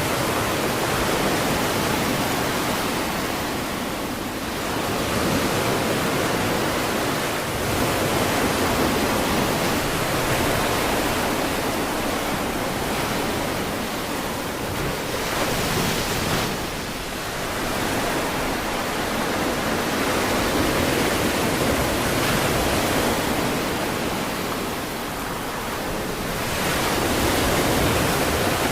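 Ocean surf breaking on a beach: a steady rush of waves that rises and eases every few seconds.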